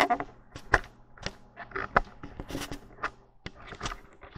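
Handling noise from a hand-held camera being moved about: irregular clicks, knocks and rubbing against the microphone, with a faint steady hum underneath.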